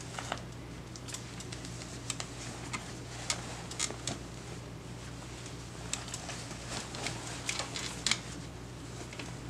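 Scattered small clicks and crinkles of hands handling a disposable diaper and baby clothes during a diaper change, over a low steady hum.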